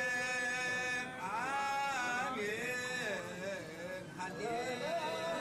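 Men's voices chanting a liturgical baptism chant, long held notes that slide up and down in pitch.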